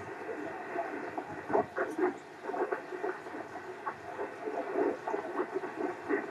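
Ham radio receiver audio: a weak, choppy voice from a distant station on single sideband, half-buried in static and fading in and out.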